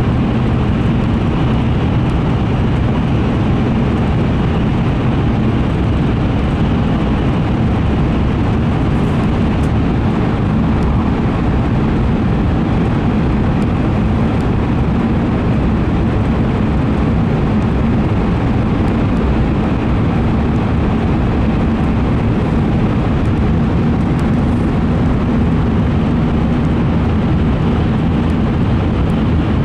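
Steady running noise of an N700A Shinkansen train at speed, heard inside the passenger car: an unbroken rumble with a faint low hum under it.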